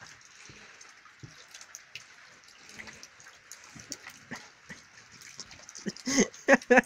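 Puppy giving three short yaps near the end as it mouths a hand in play, over a steady background hiss.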